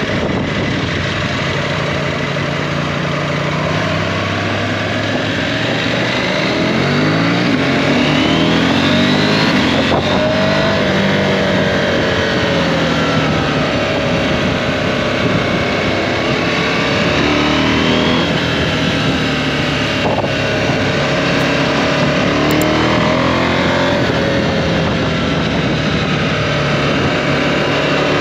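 KTM 790 Adventure's parallel-twin engine under way, its pitch rising and falling several times with the throttle, over a steady rush of wind.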